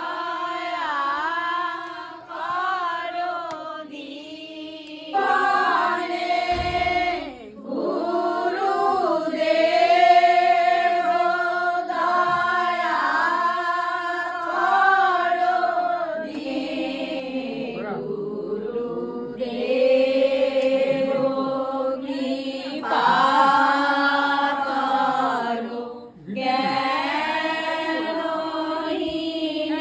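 Devotional kirtan chanting: voices singing a repeated melody in phrases, with short breaks between them.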